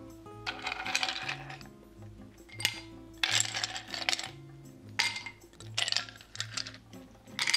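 Ice cubes dropped into a glass tumbler, clattering and clinking against the glass in about six separate bursts.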